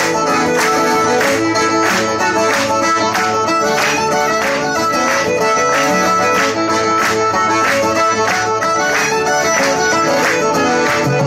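Live Irish traditional music: fiddle, banjo, piano accordion and guitar playing a tune together over a steady beat of about two strokes a second.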